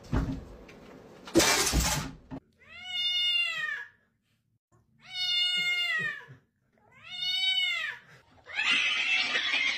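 A domestic cat yowling: three long, drawn-out meows, each rising and then falling in pitch, with a harsh noisy rasp after them near the end. A short burst of noise comes about a second and a half in.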